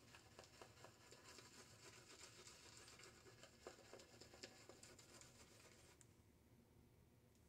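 Faint scratchy swishing of a boar-bristle shaving brush working Martin de Candre soap lather over a bearded face. The lather is still too dry. The sound dies down about six seconds in.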